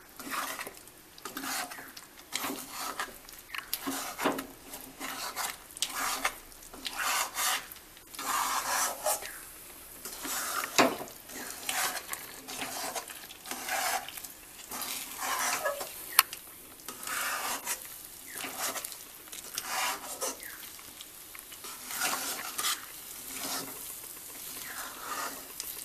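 Metal spatula stirring and scraping a thick rice-and-coconut batter around a kadhai in irregular strokes, with one sharper clank partway through. The batter is being cooked down on the gas until it dries into a dough.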